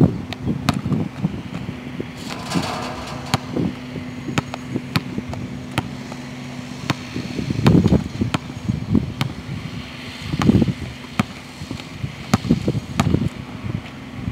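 A basketball bouncing again and again on an outdoor hard court as it is dribbled, a string of sharp, irregularly spaced bounces. Wind buffets the microphone in low rumbles, strongest about eight and ten seconds in.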